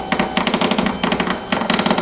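Fire alarm bell ringing: a rapid, continuous run of sharp metallic strikes, about ten a second.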